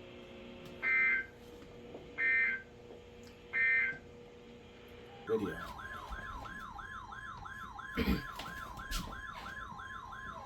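Emergency Alert System alert coming in on a weather radio: three short data bursts of the digital header, then a fast warbling alarm of about four falling sweeps a second over a steady tone. A knock sounds near the end.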